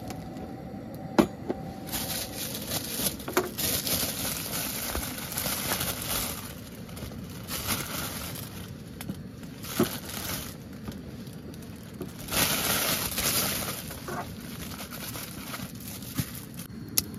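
Thin plastic bag crinkling and rustling in several bursts as bread rolls are pulled out of it, with a few sharp clinks and knocks on the table in between.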